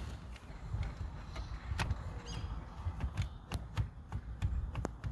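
Irregular clicks and knocks of hard plastic and metal as a 10-inch aftermarket head unit is pushed and worked into the dashboard opening to test the fit.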